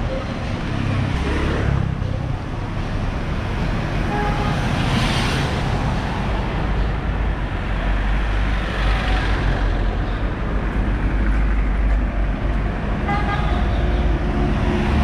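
City street traffic: cars and motor scooters passing one after another, swelling as each goes by, with brief horn toots about four seconds in and again near the end.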